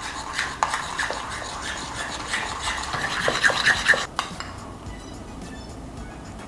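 Metal spoon stirring thick mayonnaise-based aioli in a ceramic bowl: wet scraping with light clicks of the spoon against the bowl. The stirring stops about four seconds in.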